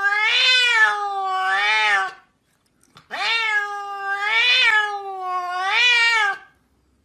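A cat meowing in two long, drawn-out calls about a second apart, the pitch rising and falling several times within each call.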